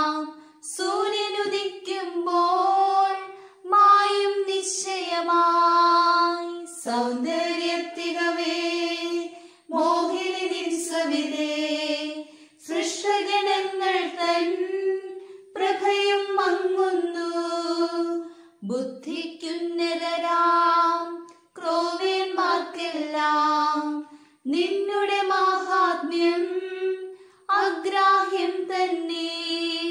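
A high voice singing a Malayalam devotional hymn unaccompanied, in short phrases of two to three seconds with brief breaths between them.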